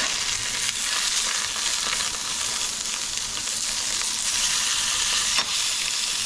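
Halibut fillets sizzling steadily in hot olive oil in a cast-iron skillet as a metal spatula flips one over, with one sharp click about five and a half seconds in.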